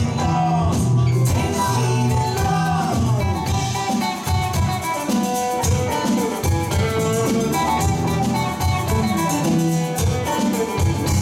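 Live band playing an instrumental passage: a sunburst Telecaster-style electric guitar plays a lead line with bent notes over electric bass and drums.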